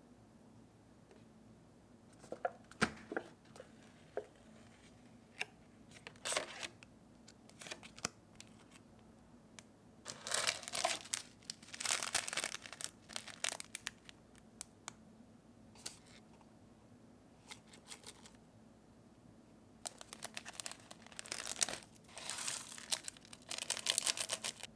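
Plastic instant-noodle packaging crinkling and tearing in several bursts with quiet gaps; the longest, loudest spells come about halfway through and near the end.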